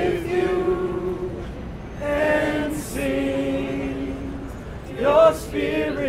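A cappella vocal chant: voices sing short phrases of long held notes, with brief pauses between the phrases.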